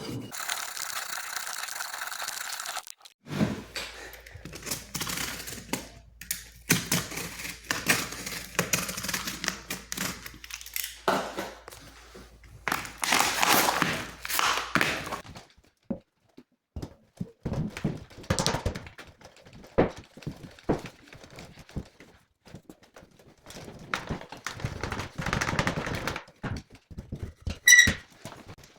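Staircase assembly work: a run of knocks, thunks and clatter of parts being fitted, broken by a few stretches of rushing noise and pauses, with a short high squeak near the end.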